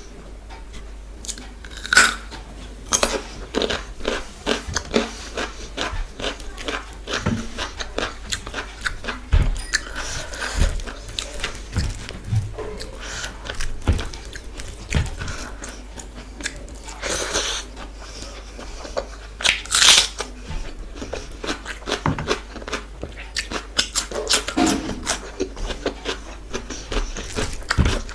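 Close-miked hand mixing basmati rice into dal on a plate: a dense run of wet squishing and clicking, with a few louder crackles about 2, 3, 17 and 20 seconds in.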